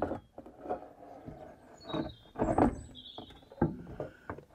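Plastic front bumper of a VW T4 knocking and scraping against the van's front as it is shuffled by hand into position on its mounting slides, with irregular thuds, the loudest about halfway through. A bird chirps a few times in the middle.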